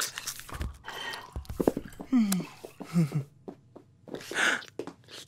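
Cartoon foley of light taps and clicks, mixed with short wordless character vocal sounds. These include two brief grunts that fall in pitch and a breathy, sneeze-like puff near the end.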